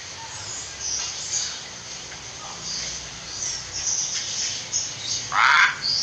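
Hill myna vocalizing: faint scattered high chirps, then one loud, harsh call about five seconds in.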